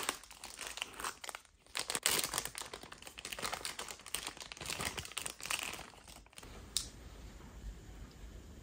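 Thin plastic bag crinkling and rustling as it is pulled off a handheld ultrasound probe, a dense crackle that stops about six seconds in. A sharp tap comes at the very start, and a single light click follows after the rustling ends.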